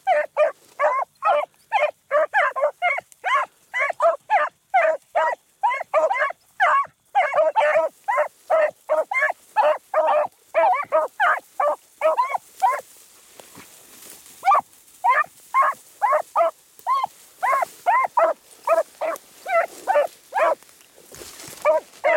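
Beagles baying while running a rabbit track: a rapid string of short barks, about three a second, some overlapping. The barking stops for a moment a little past halfway, then starts up again.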